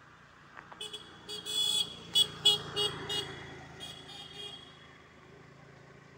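A vehicle horn honking: one longer blast, then a quick string of short toots, the loudest about two seconds in, tailing off into fainter honks. A vehicle's engine hums underneath.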